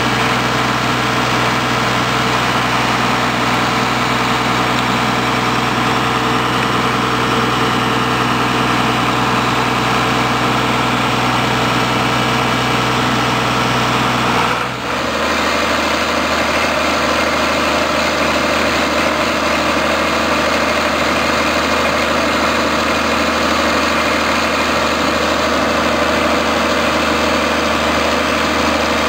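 Small auger dredger's engine running steadily. About halfway through, its tone changes abruptly to a different steady note.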